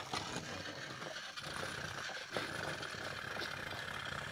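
Battery-powered Thomas & Friends toy engine whirring steadily on plastic track, with a few light clicks, as it fails to climb the loop: it lacks the gear teeth the loop track needs to grip.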